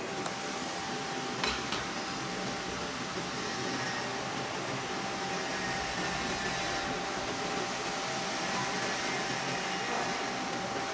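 Machinery running steadily: an even fan-like hiss with a constant high hum, and two short clicks about one and a half seconds in.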